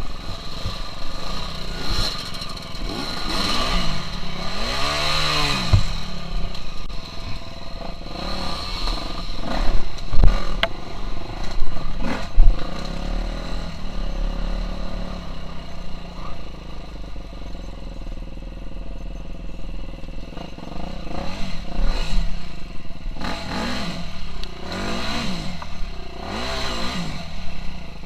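KTM 350 SX-F dirt bike's single-cylinder four-stroke engine revving up and down in repeated rises and falls while ridden off-road, with a few sharp knocks and clatter around ten to twelve seconds in.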